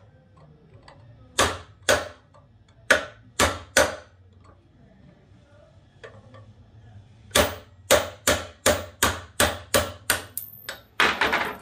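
Ball-peen hammer striking a steel pin punch to drive a 3/16-inch roll pin out of a steel oilfield anti-blowup tool: five sharp metal-on-metal blows in the first four seconds, a pause, then a quicker run of about a dozen blows, around three a second, near the end.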